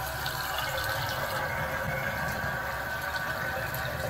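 Water running from a BWE waterfall-spout vessel sink faucet, a steady stream pouring into the ceramic vessel bowl. The faucet is being run for the first time after installation to flush the line.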